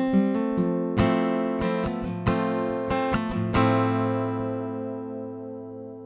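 AMI JM-AGE slope-shoulder dreadnought acoustic-electric guitar, plugged in through its CE304T pickup system, being picked and strummed; a last chord about three and a half seconds in is left to ring out and fades away.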